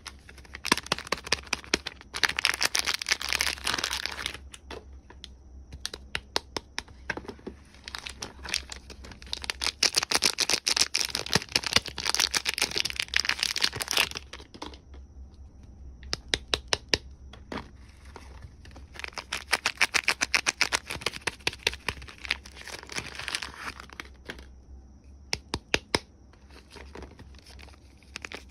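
Soap wrapping being crinkled and torn open by hand, in three stretches of a few seconds each, with runs of quick sharp clicks and taps in between.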